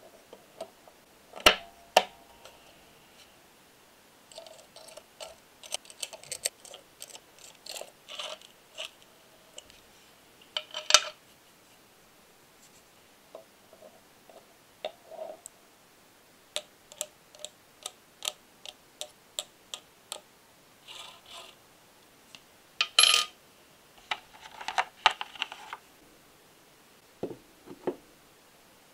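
Machined metal parts of a four-cylinder engine model kit clicking, clinking and scraping as they are fitted together by hand: the cylinder head onto the block and the camshaft into the head. Sharp clicks come in irregular clusters with short scrapes between; the loudest are two clicks close together about a second and a half in and single clacks near eleven and twenty-three seconds.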